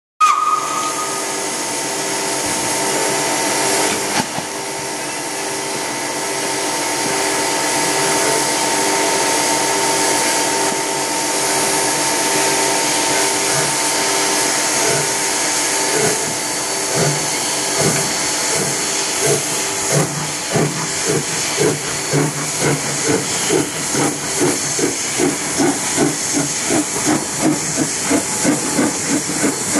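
SJ E2-class 2-8-0 steam locomotive no. 1333 starting a train. A brief whistle sounds at the very start, followed by a steady hiss of steam. From about halfway the exhaust chuffs begin and quicken to about two a second as the engine pulls away.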